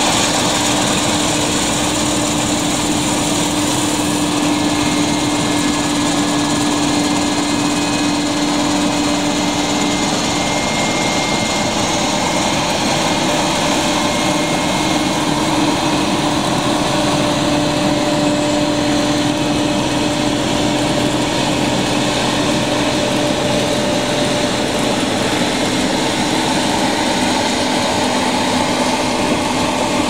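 Claas combine harvester running at working speed while cutting cereal: its diesel engine and threshing machinery make a steady, unbroken mechanical drone with a constant low hum.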